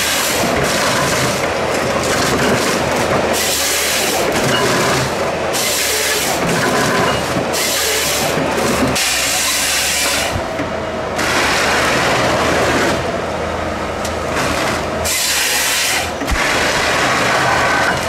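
Ecolog wheeled forest harvester at work, its engine and hydraulics running under load. The harvester head feeds logs and its chain saw bar cuts through them, making several separate bursts of saw noise a second or two long.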